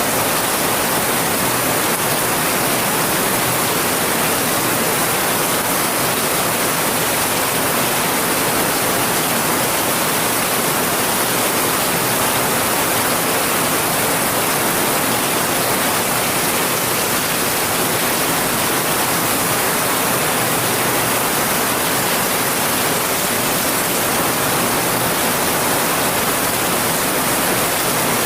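Heavy rain falling: a steady, even hiss that does not change.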